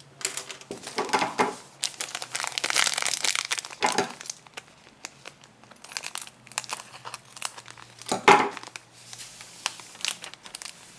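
Foil candy-powder packets crinkling as they are handled, and one is cut open with scissors: irregular crackling with a few louder bursts.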